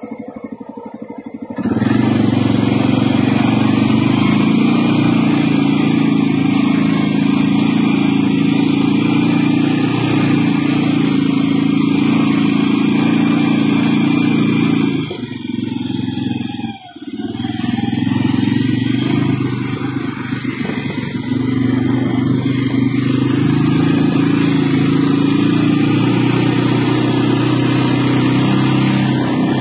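CFMOTO CForce 600 ATV's single-cylinder engine running under throttle while riding, a loud, steady drone. It is quieter for the first couple of seconds, drops away briefly about halfway, then picks back up and runs steady again.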